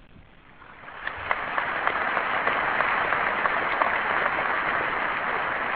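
Audience applauding: the clapping starts about a second in, swells quickly and then holds steady.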